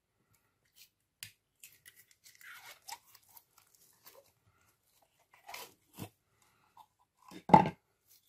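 Slime being squeezed and kneaded by hand, giving sticky crackles and clicks, with a loud wet squelch about seven and a half seconds in.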